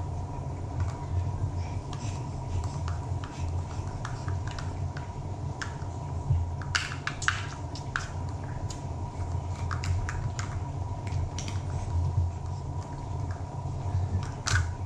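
Steady low room hum with scattered light clicks and taps, bunched a little after halfway, as the plastic stacking cup is knocked against a face and handled.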